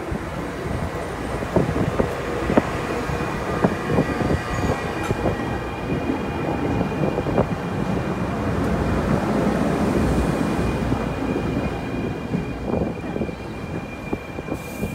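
NJ Transit electric multiple-unit commuter train running past close by: rumbling wheels with many sharp clicks over the rail joints and a steady high whine, loudest about two-thirds of the way through as the cars go by.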